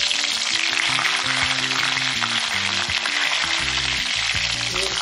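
Hot oil sizzling steadily in a kadhai as curry leaves and chopped green chillies fry with cumin and mustard seeds. This is the tempering (phodni) for pohe.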